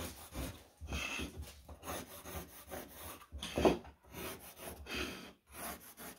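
A wooden scribe block and pencil dragged along a worktop against the wall, making a run of uneven rubbing scrapes, one louder than the rest a little past the middle.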